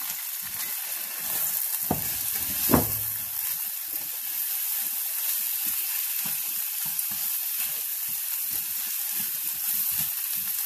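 Sliced onions sizzling in hot oil in a frying pan, stirred with a spatula. Two knocks about two and three seconds in, the second the loudest, then light taps and scrapes of the spatula against the pan.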